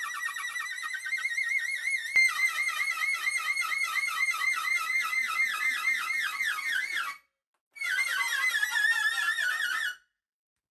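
Bosch UniversalHammer 18V cordless rotary hammer driving a long wood auger bit, its motor whining high with a quickly wavering pitch as it labours against the bit's friction, too much load for this hammer. There is a sharp click about two seconds in; the whine stops about seven seconds in, starts again a moment later and stops about ten seconds in.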